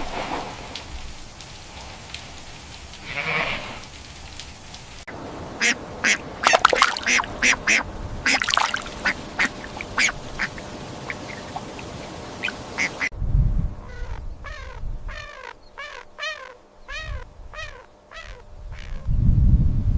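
Ducks quacking, in several short clips joined together: a few scattered calls, then a busy stretch of many overlapping quacks, then a run of evenly repeated calls. A low rumble comes in twice in the last part.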